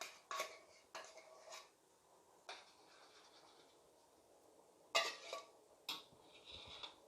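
A metal utensil clinking and scraping against a cooking pot as curry is stirred: several separate, uneven clinks with a short ring, the loudest about five seconds in, and a quiet stretch in the middle.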